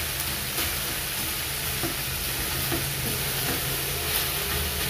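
Kalmi shak (water spinach) frying with garlic in olive oil in a pan, sizzling steadily, with a few faint clicks.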